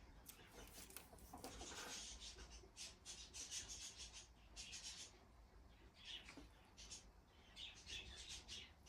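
Faint, irregular scratching and rustling of hands working at the scooter's wiring, in short scrapes a fraction of a second long, with brief pauses between them.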